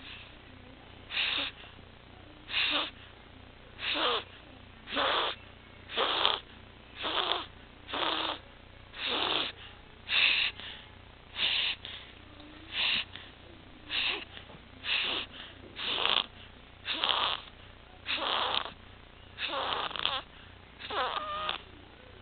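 Six-week-old infant's harsh, noisy breathing, a stridor sound with every breath at about one breath a second; a few breaths near the end take on a whistling tone. The stridor comes from a floppy larynx and trachea (laryngomalacia and tracheomalacia).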